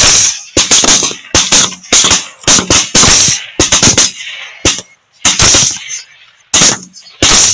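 Rifle gunfire: many shots in quick strings, some a fraction of a second apart, with short pauses between strings.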